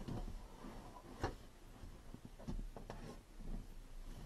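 Scattered soft knocks, clicks and rustling of the car's rear shelf trim panel being handled and worked into place, with one sharper click about a second in.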